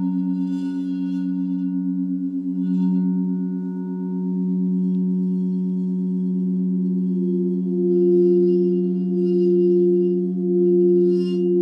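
Sound-healing drone music of layered, sustained singing-bowl-like tones in the 432 and 528 Hz frequency style. The tones pulse in slow swells, and faint high shimmering chimes come in now and then, most in the last few seconds.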